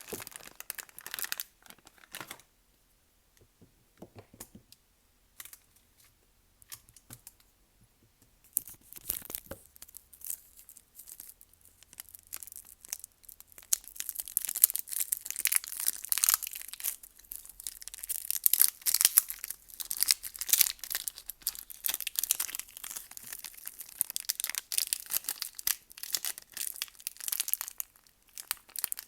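Soap packaging being crinkled and torn open by hand. After a short burst at the start come a few seconds with only faint handling clicks. Then, from about nine seconds in, the wrapper crackles and tears, growing louder and denser.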